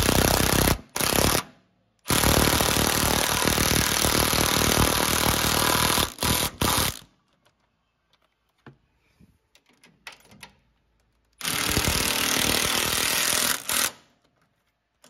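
Cordless impact wrench hammering sway bar end-link nuts tight with a socket, in bursts: two short ones, a long one of about five seconds, then after a pause of about four seconds another of about two and a half seconds. Faint ticks of tools on metal in the pause.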